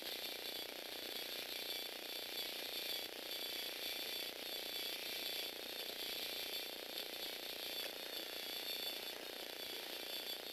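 Lego Power Functions electric motor (8293 set) running a biped walking robot: a steady high motor whine through plastic gears, with a continuous gritty clatter of the gear train and leg mechanism.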